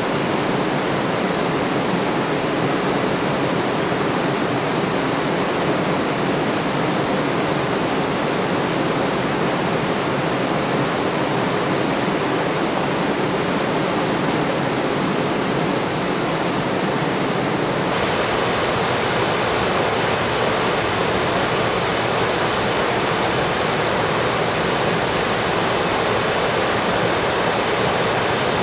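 Steady rush of a fast-flowing, clear mountain river. Partway through it turns brighter and hissier.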